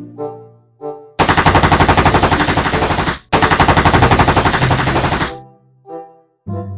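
Machine gun firing two bursts of rapid automatic fire, each about two seconds long with a brief gap between, at about ten shots a second.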